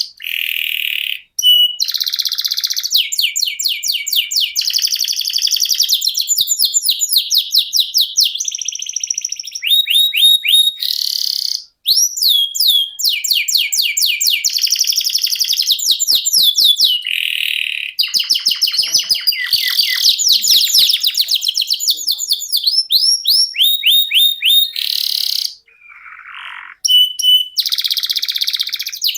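Domestic canary singing a long, continuous song of rapid trills and rolls: fast runs of repeated high notes, quick upward sweeps and chirps, broken only by a few brief pauses.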